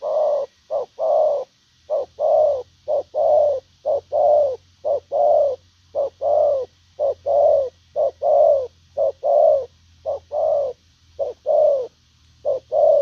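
Spotted dove giving its bow-coo display call ('gù'): a rapid, unbroken series of short and longer coos, each falling slightly in pitch, about two a second.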